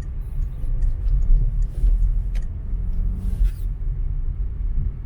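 Steady low rumble of vehicle noise, with a few faint short clicks and rustles in the first few seconds.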